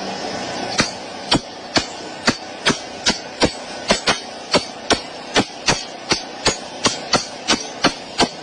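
Hammer blows struck in a steady, quickening rhythm of about two to three strikes a second, starting about a second in.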